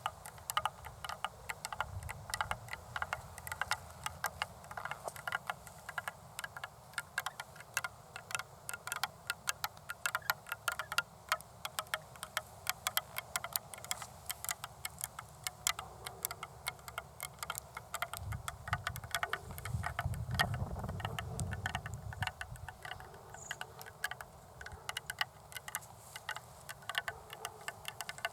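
Long fingernails tapping in quick, irregular clicks, several a second. A low rumble joins them for a few seconds past the middle.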